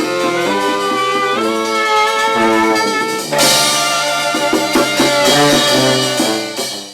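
Brass band music: horns playing with drums. There is a loud accent about three and a half seconds in, and the music fades and stops at the very end.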